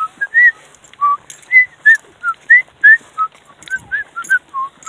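A person whistling a tune: a run of short, clear notes, about three a second, stepping up and down in pitch.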